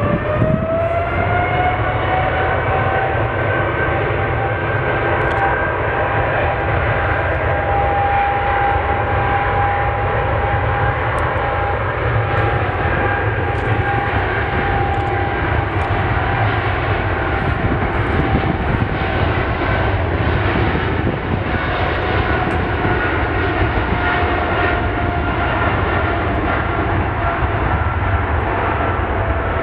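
Boeing 777-300ER's twin GE90-115B jet engines at take-off thrust during the take-off roll. A whine rises in pitch over the first couple of seconds as the engines spool up, then holds steady over a loud, even rumble.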